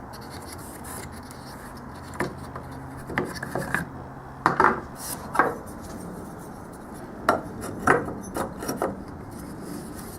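Metal door hinge being handled and set into a freshly routed wooden hinge mortise: scattered light knocks and short scrapes of metal against wood, in a few clusters.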